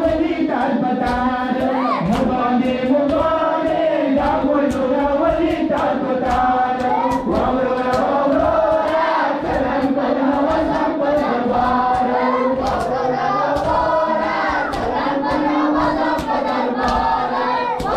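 A group of boys and men chanting a noha (Shia mourning lament) in unison behind a lead reciter on a microphone, with a steady beat of open-hand slaps on bare chests (matam).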